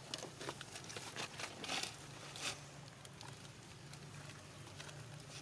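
Light rustling and crackling, with two louder rustles about two and two and a half seconds in, over a faint steady low hum.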